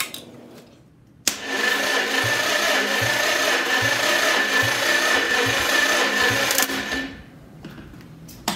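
Continental flathead four-cylinder engine cranked over on its starter motor for about five and a half seconds: a steady starter whine with a regular low pulse, about three every two seconds, from the compression strokes. It is a wet compression test on one cylinder, which comes up to only about 67 PSI against just under 100 on another cylinder.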